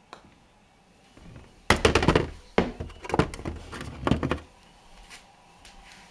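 A faint putter click, then about a second and a half later the golf ball drops into the plastic cup of an indoor putting mat. Loud plastic knocks and rattles follow for about three seconds as a hand scoops the ball out of the hole.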